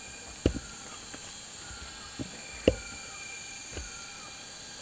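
Forest ambience: a steady high insect drone with a bird repeating a short falling whistle, cut by a few dull thumps, the loudest about half a second and two and a half seconds in.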